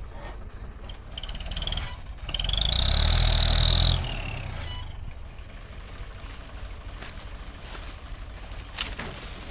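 A motor revs up with a high whine for about two seconds, then cuts back sharply. A steady low engine rumble runs underneath.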